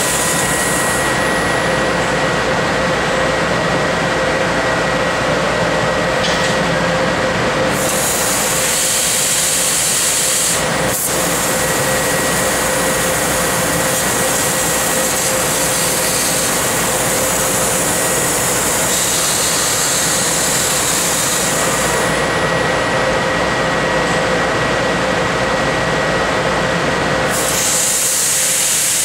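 Tanaka 6 kW laser cutting machine cutting 1/4-inch mild steel: a loud, steady mix of rushing hiss and machine hum with two steady tones. A high hissing drops away about a second in and returns a few times.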